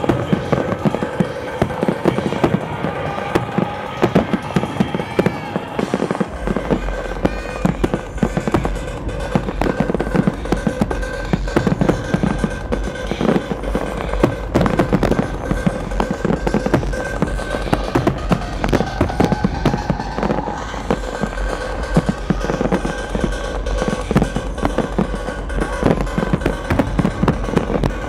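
Aerial fireworks display, a dense run of shell bursts and crackling with no let-up, over music playing steadily underneath.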